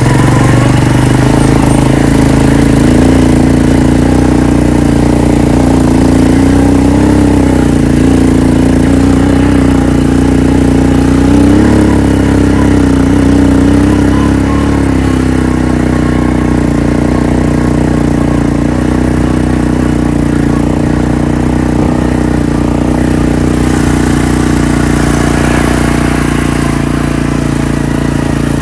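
Four-wheeler (ATV) engine running while it is ridden, its pitch rising and falling a little with the throttle through the first half, then holding steadier and a touch quieter.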